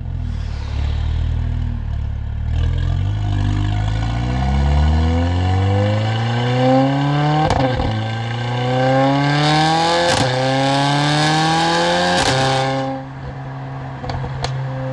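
Mercedes-AMG CLA45's turbocharged four-cylinder accelerating hard through the gears: the revs climb and three upshifts each land with a sharp exhaust crack. Near the end it lifts off to a steady lower note with a couple of small pops.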